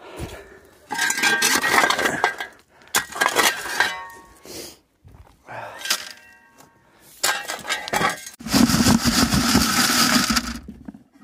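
A steel shovel scraping into rocky gravel and dumping scoops of dirt and stones onto a quarter-inch classifier screen over a bucket, the stones clinking and rattling on the metal mesh. This happens several times, with a longer, heavier rattle of gravel near the end.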